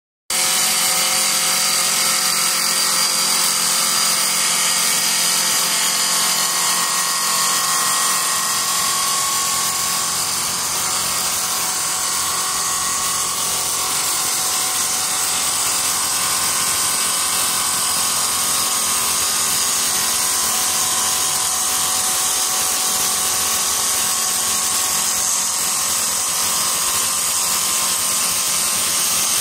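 Automatic wood-turning lathe running, its cutter shaving a spinning olive wood blank into a pestle: a steady machine whine mixed with the hiss of wood being cut.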